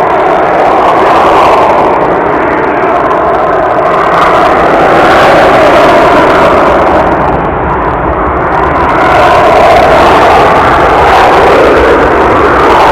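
Jet airliner taking off at close range: a loud, steady engine rush that swells and eases slowly, dipping slightly about two-thirds of the way through.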